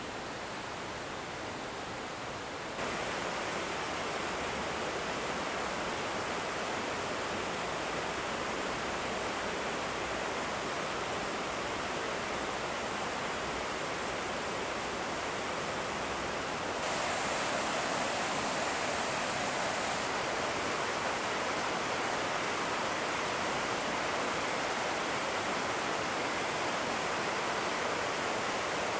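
Steady rush of a mountain river, the Hinterrhein, running over rocks. It grows louder twice, about three seconds in and again a little past halfway.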